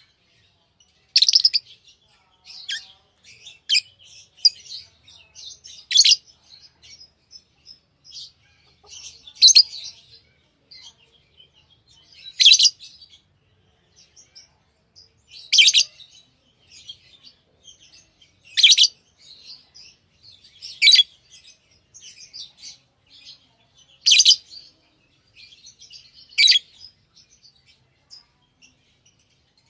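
Pet lovebirds chirping: short, loud, high-pitched calls about every three seconds, with softer chirps between them.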